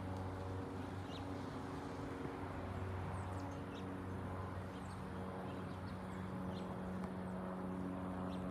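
A steady low hum with an even pitch, with short bird chirps now and then.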